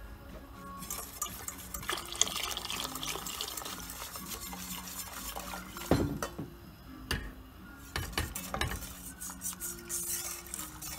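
Wire whisk stirring thick tomato soup in a stainless steel pot, its wires clinking and scraping against the pot with a sloshing of the soup. The loudest knock comes about six seconds in.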